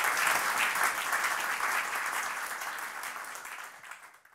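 Audience applauding, with a dense patter of many hands clapping that fades away toward the end and then cuts off.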